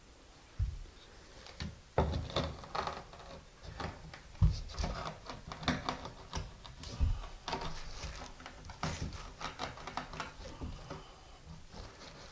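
Ceramic wall tiles being handled and set: many irregular clicks and taps, with a few low thumps.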